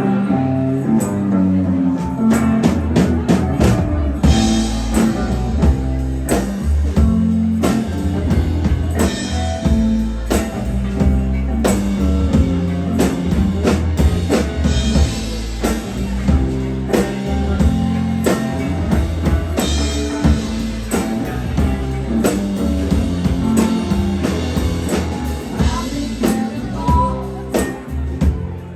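Live rock band playing a song: a drum kit keeps a steady beat under bass and electric guitar.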